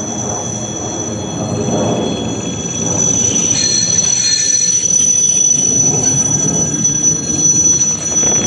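ED4M suburban electric train running past, a steady rumble of wheels and motors. A steady high-pitched squeal joins about three seconds in and holds until near the end.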